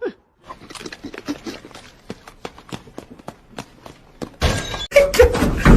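A run of light, irregular clicks and taps, then about four and a half seconds in a sudden much louder stretch of noise with voices.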